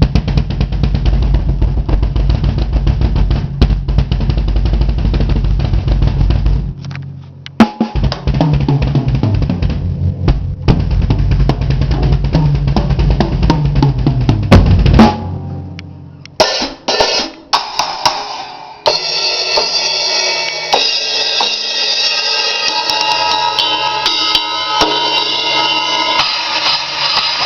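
Bass drum of a PDP X7 maple kit, with an Evans EMAD2 batter head, foam ring and stock resonant head, played in fast runs of kicks, with a short break about seven seconds in. From about sixteen seconds, cymbal hits take over and build into a steady ringing cymbal wash.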